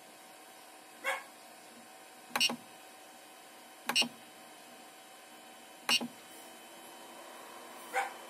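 Short beeps from the Ender 3's control-panel buzzer, five of them spaced about one and a half to two seconds apart, the second one doubled, each acknowledging a press of the menu knob.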